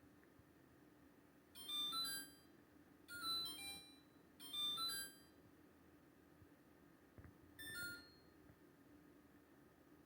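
An LG LFX25960ST refrigerator's control panel sounding short electronic beep chimes, each a quick run of several tones, four times. The fridge keeps beeping by itself, the fault the owner is trying to fix.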